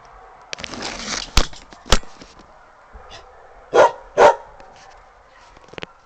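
A dog barks twice in quick succession, loud and short, about four seconds in. Before that there is rustling with two sharp clicks.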